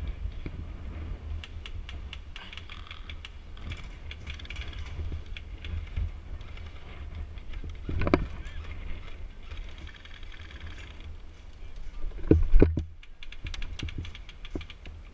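Scattered sharp clicks and pops of airsoft guns firing and BBs striking, over a low rumble of wind on the microphone. There is a louder crack about eight seconds in and a burst of heavier knocks near the end.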